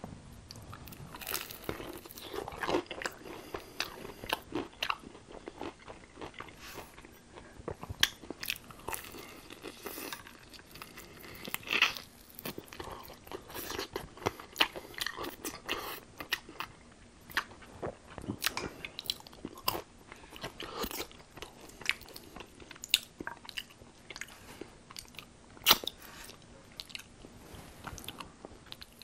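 Close-miked biting and chewing of tempura-battered fried chicken wings: the crisp batter cracks in many sharp crunches between stretches of chewing. The loudest crunch comes a few seconds before the end.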